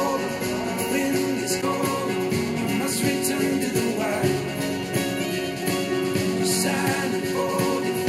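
A song with singing, played through a pair of Yamaha HS5 studio monitors and then, partway through, through a pair of Mackie CR5-X studio monitors, picked up by microphones placed in front of the speakers.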